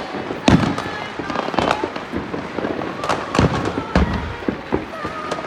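Neighbourhood fireworks and firecrackers going off all around, a continuous crackle broken by several sharp bangs, the loudest about half a second in and between three and four seconds in.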